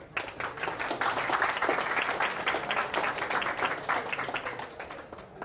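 Audience applauding: many hands clapping together, starting just after the talk's close and dying away near the end.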